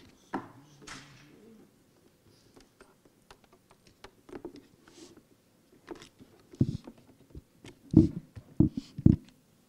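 Scattered light clicks and knocks of equipment being handled, then four heavy thumps in the last three seconds, the loudest sounds here.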